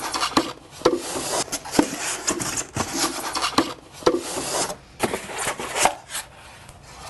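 Polystyrene foam packing rubbing and scraping with scattered knocks as a dress form's caster base is turned over in it and the foam block is pulled off the base.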